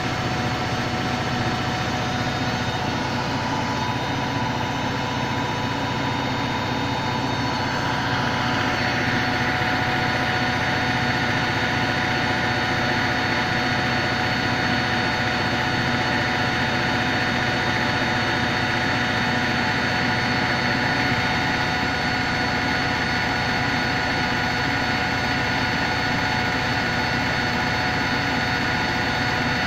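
Hoover Electronic Automatic de luxe washing machine running steadily on its spin, a motor hum with steady whining tones. About eight seconds in, a higher whine joins and the sound gets slightly louder.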